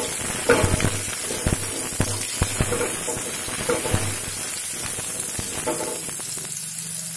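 Potato cubes sizzling in hot mustard oil as a spatula stirs them around the pan, with scrapes and light knocks of the spatula against the pan.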